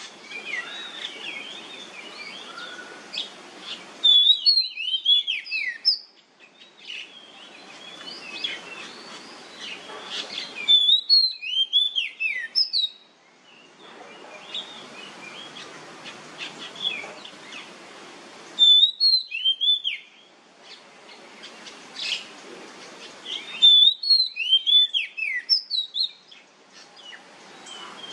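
Oriental magpie-robin singing: four loud bursts of rapid, sliding whistled notes, with softer chirps between them. Between the bursts, a steady hiss comes and goes.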